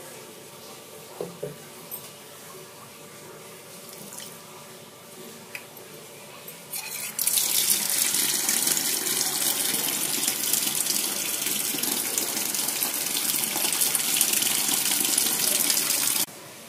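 Kitchen tap water running hard onto vegetables soaking in a stainless steel basin, splashing into the water. It comes on about seven seconds in and stops suddenly near the end; before it there is only faint room noise with a few small knocks.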